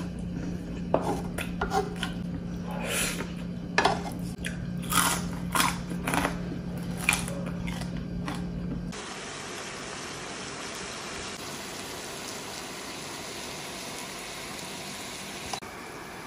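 Close-up eating sounds: chewing squid, with wet lip smacks and mouth clicks over a steady low hum. About nine seconds in these give way to a steady sizzle of stir-fried squid and sauce on a hot iron sizzling plate.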